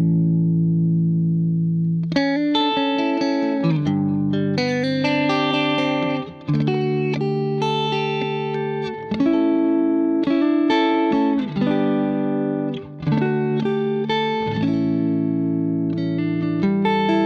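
Clean electric guitar, a Fender Telecaster played through the All Pedal Galacta Vise compressor into a Vox AC30 amp, strumming and picking chords whose notes ring with long, even sustain. The chords change every second or so, with a few brief gaps between phrases.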